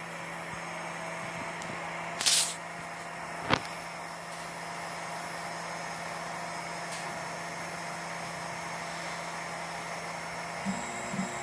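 Homebuilt large-format 3D printer running with a steady mechanical hum of motors and fans, held on fixed tones. A short hiss comes about two seconds in and a sharp click about a second later.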